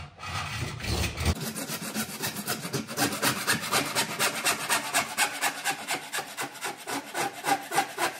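Hand wood saw cutting through 110 mm plastic soil pipe in quick, even back-and-forth strokes, about three a second.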